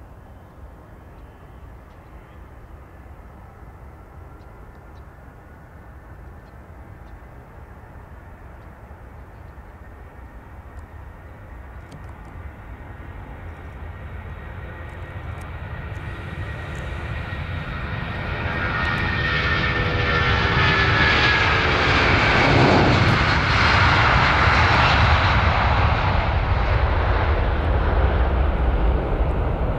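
Boeing 757-300's twin Rolls-Royce RB211 turbofans at takeoff thrust during the takeoff roll. A low, distant rumble grows steadily louder over about twenty seconds and peaks as the jet passes, its whine falling in pitch. The engine noise then stays loud as the airliner lifts off and climbs away.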